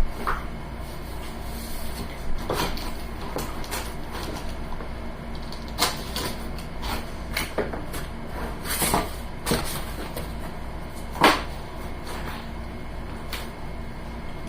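Cardboard shipping box being handled: irregular knocks, taps and scrapes of cardboard, the sharpest knock about eleven seconds in, over a steady low hum.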